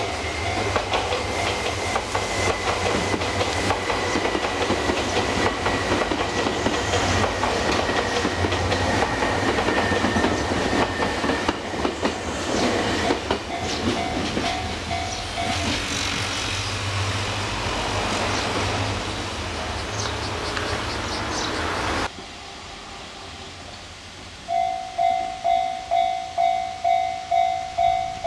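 A train passing over a level crossing, its wheels clacking over the rail joints, with the crossing's warning bell ringing faintly underneath. The sound cuts off abruptly about 22 seconds in. After a short lull the crossing bell rings again on its own, a steady two strikes a second.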